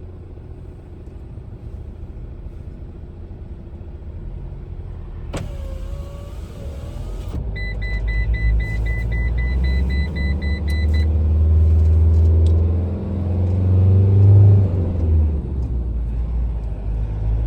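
Car engine and road rumble heard from inside the cabin, building as the car pulls away and gathers speed. A click comes about five seconds in, and a rapid, evenly pulsed high beeping sounds for about three seconds shortly after.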